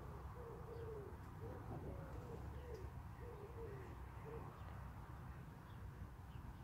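A pigeon cooing: a run of soft, low coos for the first four and a half seconds or so, then it stops, over a faint low background rumble.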